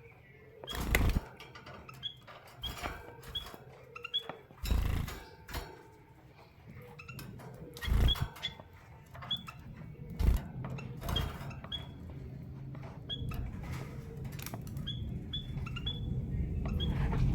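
A caged canary and white-headed munia pair: short, high chirps repeated at irregular intervals. Several knocks and thumps come from the birds moving about the cage.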